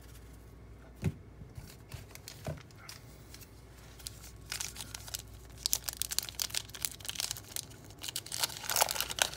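Waxed-paper wrapper of a 1987 Topps wax pack being peeled and torn open by hand, crackling and crinkling. It starts about halfway through and gets louder toward the end, after a couple of soft knocks from cards being handled.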